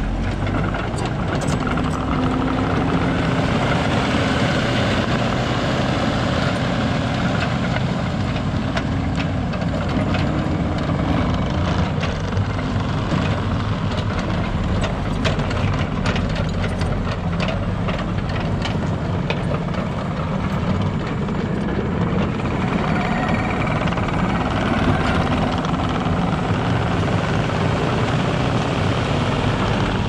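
2017 New Holland C238 compact track loader's diesel engine running steadily while the machine drives about on its rubber tracks, with scattered clicks and rattles through the middle.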